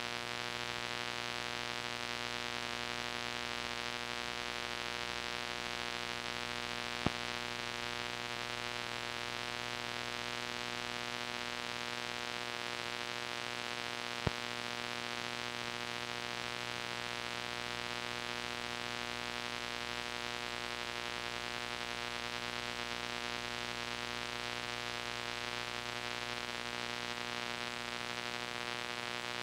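Steady hiss from an old VHS tape's audio track with a constant mains hum and buzz, and no music or voices. Two brief clicks about seven seconds apart.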